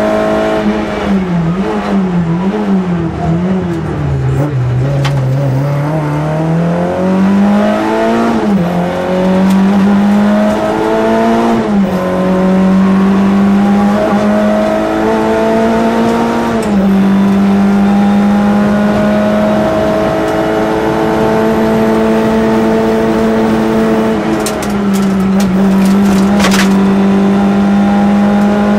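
Citroën AX GT rally car's four-cylinder engine heard from inside the cabin, at full stage pace. The engine note wavers and dips in the first few seconds, then climbs again, with sudden drops in pitch at gear changes about twelve, seventeen and twenty-five seconds in. A couple of brief sharp knocks come through, one about five seconds in and one near the end.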